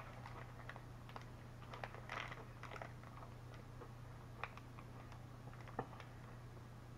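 Faint crinkling and small clicks of a chocolate bar wrapper being handled, with quiet chewing, over a steady low hum.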